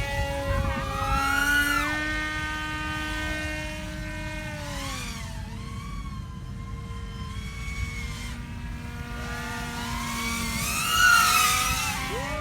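RC aircraft motor whining, its pitch rising and falling with throttle and passes, loudest about eleven seconds in as it swells and drops away.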